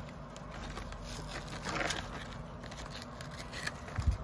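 Metal tool scraping and chipping water-softened plaster investment out of a steel casting flask after an aluminium pour, with scattered clicks, a louder scrape about two seconds in and a knock near the end.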